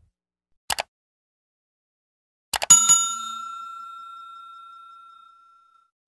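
Subscribe-button animation sound effects: a quick double mouse click, then two more clicks and a notification-bell ding that rings out slowly for about three seconds.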